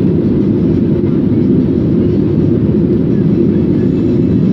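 Airliner cabin ambience in flight: a steady low rumble of engines and airflow, unchanging throughout.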